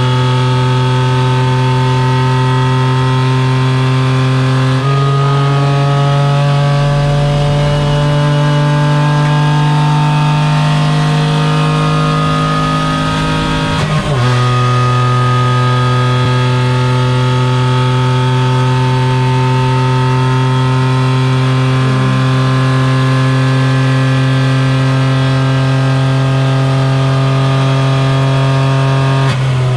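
Renault Twingo Cup race car's engine heard from inside the cockpit, running at steady high revs at speed. Its pitch steps up slightly about five seconds in and creeps upward for several seconds. About fourteen seconds in it briefly breaks and drops, then holds steady again.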